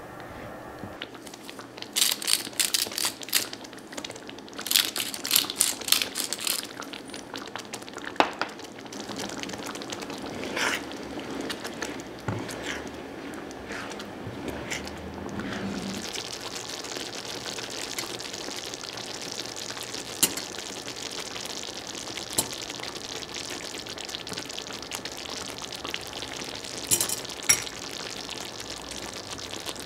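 A spatula stirs and scrapes thick tomato sauce in a cast-iron skillet, with sharp clicks of the spatula against the pan in the first several seconds. After that the sauce simmers with a steady sizzling hiss, broken by a few single knocks.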